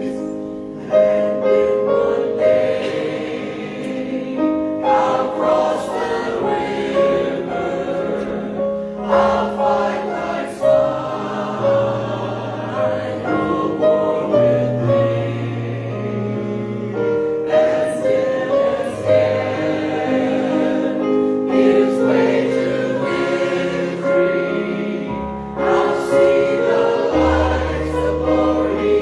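Choir singing with instrumental accompaniment: held chords over a bass line that steps from note to note.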